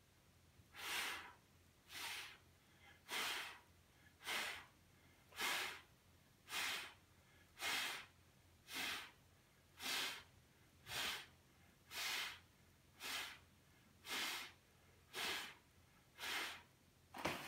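A man breathing out in short, sharp puffs, about one a second and evenly spaced, each breath paced to the alternating leg lifts of the Pilates scissors exercise.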